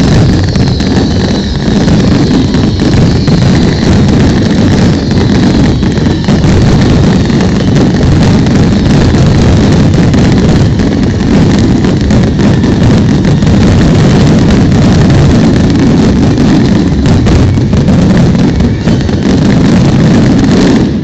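Fireworks finale: a dense, continuous barrage of firework bursts and crackling, very loud, which stops suddenly at the very end.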